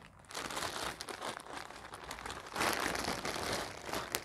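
Clear plastic packaging bag crinkling as a folded cotton suit piece is pulled out of it, loudest about two and a half seconds in.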